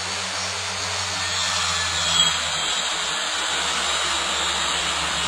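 Steady, loud hiss with a low hum underneath, unchanging throughout.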